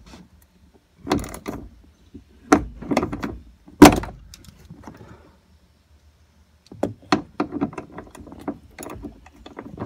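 A socket wrench, an extension and a Torx bit clanking and clicking as they are worked against a very tight hatch lift support bolt. There is a sharp clack about four seconds in, and a run of quick clicks near the end.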